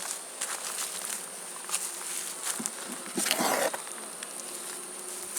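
Honeybees buzzing steadily around an open hive, with scattered light clicks. A short rush of noise comes about three and a half seconds in.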